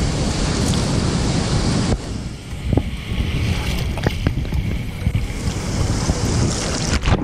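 Ocean surf breaking and foaming around and over a camera at water level: a steady loud rush of water with a few sharp splashes, and wind buffeting the microphone.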